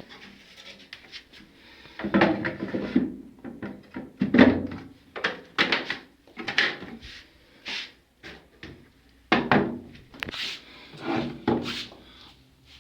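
A series of irregular knocks and clunks, about a dozen over several seconds, the strongest a little after the middle.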